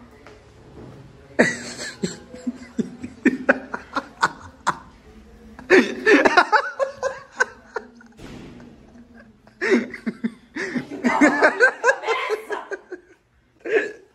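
People laughing in several bursts, with runs of short breathy pulses between them.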